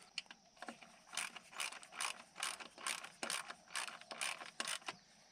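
Hand ratchet wrench worked in quick repeated strokes, about two to three a second, each a short rasping click of the pawl, as a bolt is run down during the boom cylinder refit.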